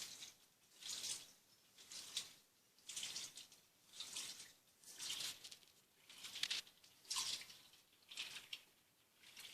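Turbo Economia 15 kg top-loading washing machine agitating a load of jeans: faint rhythmic sloshing and swishing of water, about one swish a second as the agitator turns back and forth.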